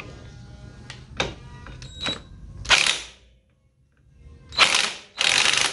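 18V cordless impact wrench hammering in short bursts on the clutch nut of a Yamaha Jupiter Z1, with a 19 mm socket. One burst comes about three seconds in and two more close together near the end, after a few light clicks.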